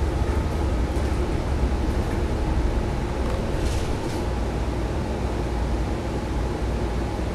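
Cabin sound of a 2018 New Flyer XDE40 diesel-electric hybrid bus under way: the Cummins B6.7 diesel and BAE HybriDrive electric drive run with a steady low rumble and a few steady tones over road noise. A brief hiss comes about four seconds in.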